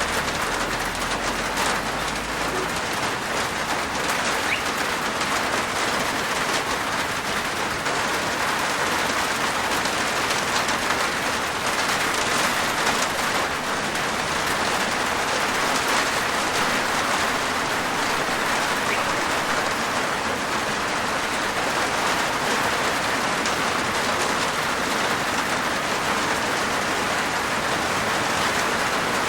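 Steady rain falling on a roof, a dense even patter of drops.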